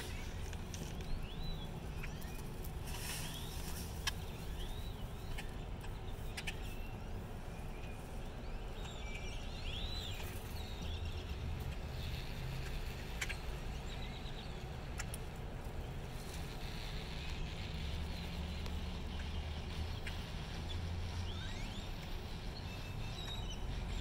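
A flock of grackles calling, with scattered short whistles that rise and fall and sharp clicks, over a steady low rumble.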